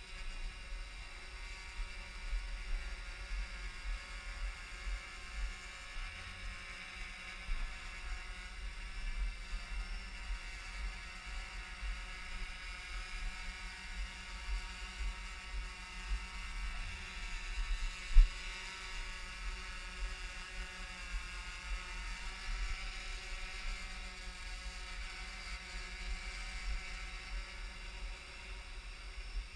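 Yuneec Typhoon H hexacopter's six electric motors and propellers humming steadily as it hovers low, with an uneven low rumble underneath. A single thump about two-thirds of the way through is the loudest sound.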